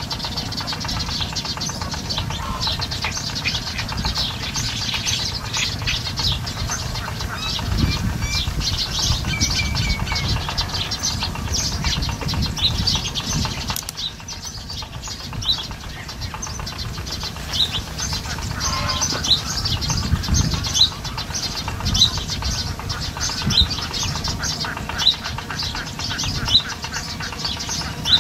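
Outdoor ambience: wind on the microphone in low rumbling gusts, with small birds chirping in the background in many short high chirps.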